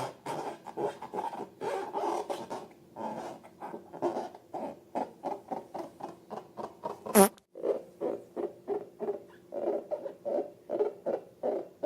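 Rubber balloons being squeezed and rubbed with slime, giving rapid squeaky, squelching strokes about three times a second. There is one sharp, loud squeak about seven seconds in.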